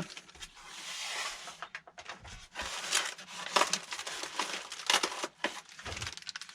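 Unboxing sounds: plastic packaging and cardboard rustling and crinkling, then a run of light clicks and knocks as small parts are handled.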